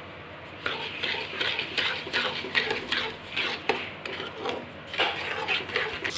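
A metal spatula stirring sugar into thickened reduced milk in a metal kadhai, scraping against the pan in quick strokes about three a second, starting just under a second in.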